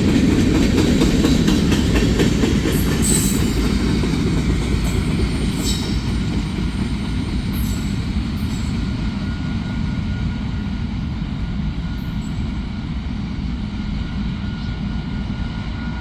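Freight train cars rolling past, a steady heavy rumble and wheel clatter on the rails with a few brief sharp high clicks, slowly growing quieter as the train moves on.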